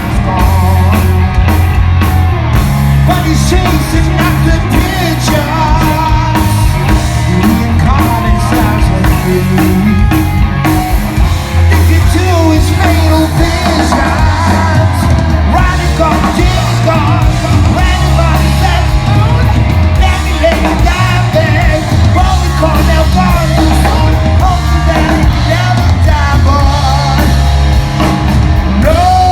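A heavy rock band playing live and loud: distorted guitars, bass and drums, with a singer's voice over them.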